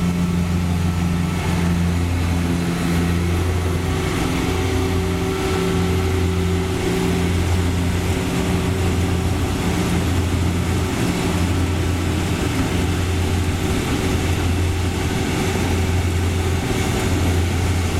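Rice harvester's diesel engine running steadily, a constant low hum.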